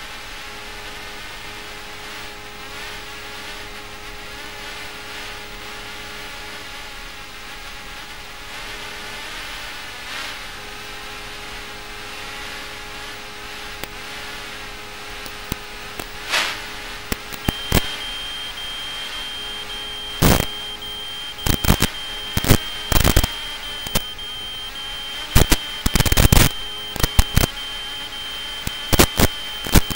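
Small FPV quadcopter's motors and propellers whirring, the pitch wavering as the throttle changes. Past the middle, a steady high beep sets in, and sharp crackles and knocks break through repeatedly.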